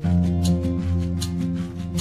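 Background music: a new piece cuts in abruptly, with sustained instrument notes over a steady beat.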